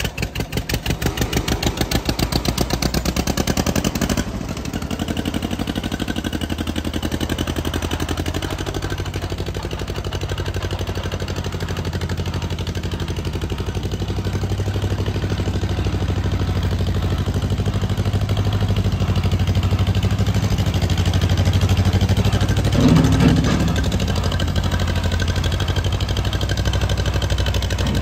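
John Deere 420W tractor's two-cylinder engine running. For about the first four seconds it gives a fast train of sharp exhaust pops, then runs more smoothly while the tractor drives off. There is a short louder clatter about 23 seconds in.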